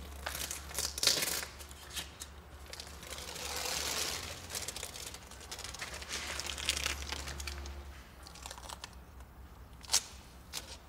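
Masking tape being peeled off around a window sill, a crinkling, ripping sound that comes and goes, with sharp snaps about a second in and near the end.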